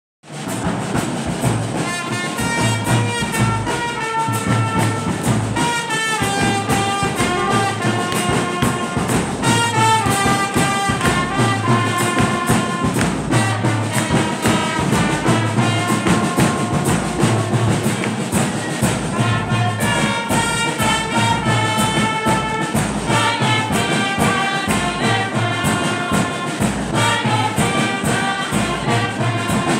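A brass band of trumpets and trombones playing a lively melody, with a steady beat underneath.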